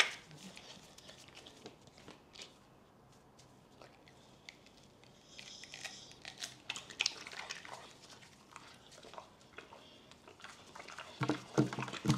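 A bully-breed dog biting and chewing juicy pineapple: wet, crunchy chewing with scattered clicks. There is a sharp click at the start, a quieter spell, and louder chewing again near the end.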